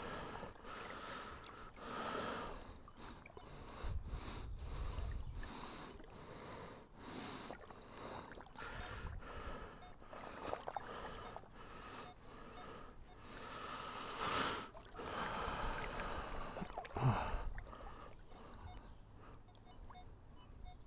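Water sloshing and swishing in uneven swells, from wading and sweeping a metal detector through shallow water. Near the end come faint, short, evenly spaced electronic beeps.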